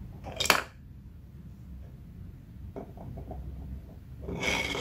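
3D-printed PLA plastic screw parts being handled and fitted together. There is one sharp click about half a second in and a few faint ticks around three seconds. Near the end comes a short scraping rub as a printed part slides onto the threads.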